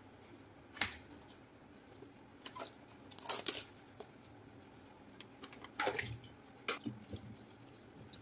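Button mushrooms tipped from a plastic punnet into a steel bowl of water and washed by hand: a few short, scattered splashes and knocks.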